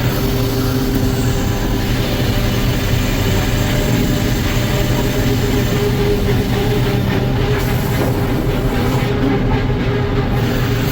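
Sawmill running steadily: a constant loud mechanical drone with a strong unbroken hum.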